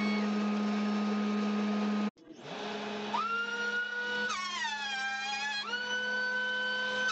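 A jointer running with a steady hum that cuts off abruptly about two seconds in. A benchtop thickness planer then spins up to a steady whine. Its pitch drops as a board feeds through and loads the motor, recovers, then drops again near the end.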